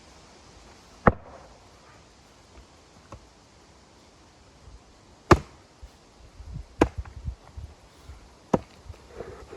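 Wood being chopped with an axe: four sharp strikes at irregular intervals, with smaller knocks and thuds between them.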